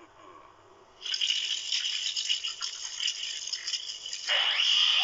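Anime sound effect: a dense, high crackling rattle that starts suddenly about a second in, joined near the end by repeated rising whistling sweeps.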